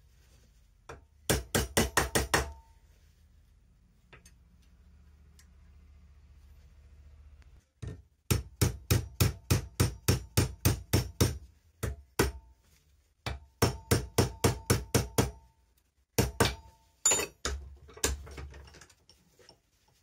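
Small hand hammer striking a twisted steel rod in quick runs of light blows, about four or five a second, each blow with a short metallic ring; four or five runs with brief pauses between them.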